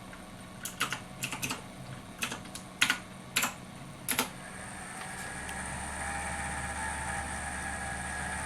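Typing on a computer keyboard, about a dozen key clicks in the first four seconds. Then a steady low hum with a whine above it comes up and holds, a machine noise.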